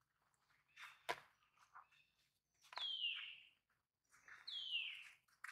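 Two high calls about two seconds apart, each a falling whistle-like slide, with a sharp click just after a second in.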